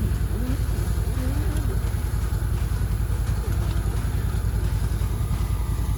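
A vehicle engine running steadily, with a fast, even low throb.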